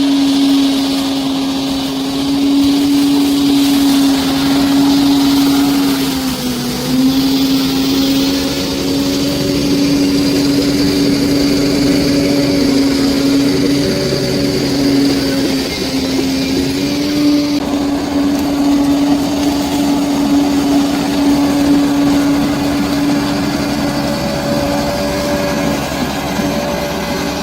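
Large bulldozer's diesel engine running steadily, its pitch dipping briefly twice, about a quarter of the way in and again past halfway.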